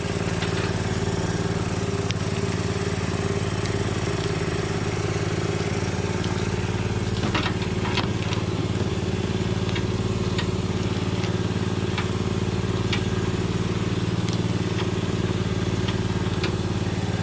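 A motor or engine running steadily with a constant hum, with a few light clicks and taps scattered through it.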